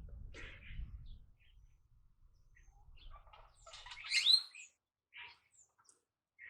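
Birds chirping: scattered short high calls, with the loudest cluster, including a falling whistled note, about four seconds in.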